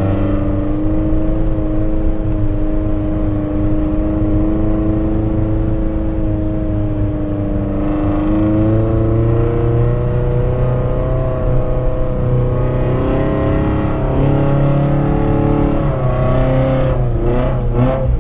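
Chevrolet Tracker 4x4's engine pulling through soft dune sand, heard from inside the cabin. The engine note holds steady at first, climbs from about halfway, and wavers up and down several times near the end as the throttle changes.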